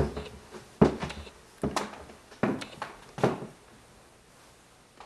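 Footsteps on a wood floor: five even steps a little under a second apart, each a short knock.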